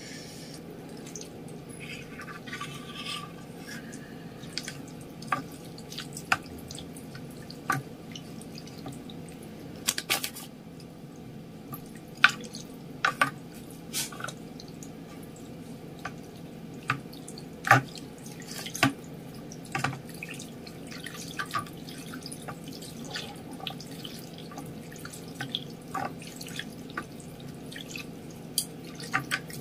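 Chopsticks stirring and lifting noodles in a clear plastic bowl of broth: scattered, irregular clicks and taps against the bowl, with broth dripping back in. A steady low hum runs underneath.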